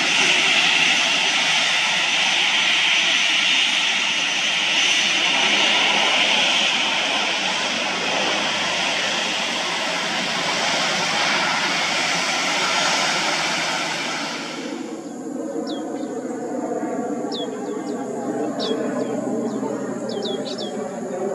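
Airbus A400M's four turboprop engines running loudly on the runway, a dense, steady noise of propellers and engines. About two-thirds of the way through it cuts off abruptly to a quieter, lower drone of the aircraft overhead, with birds chirping again and again.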